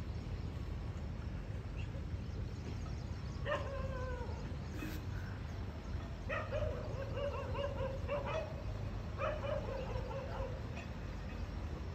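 A dog barking and whining, about four pitched calls with a slightly falling tone, some drawn out for about a second, over a steady low rumble.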